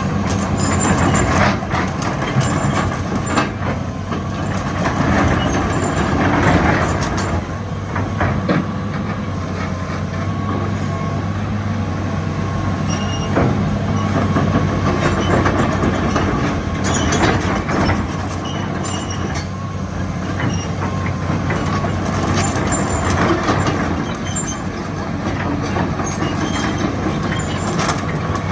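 Hitachi EX225USR hydraulic excavator running, its diesel engine giving a steady low hum, with scattered metallic clanks and short squeals from the machine working.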